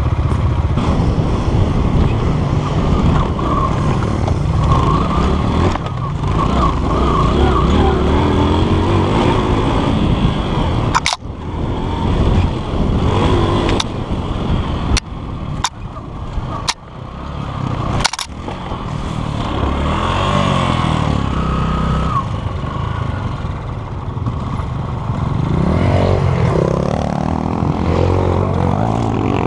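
Dirt bike engines running while riding along a rough trail, the nearest bike revving up and down. There is a run of sharp knocks around the middle.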